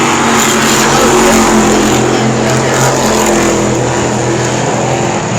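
Race cars running at speed around an asphalt oval, several engines sounding at once with their pitch shifting slightly as the cars go by.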